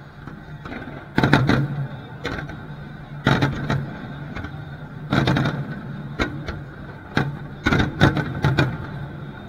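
Aerial fireworks shells bursting: about a dozen sharp booms at irregular intervals, some in quick pairs, over a steady low hum.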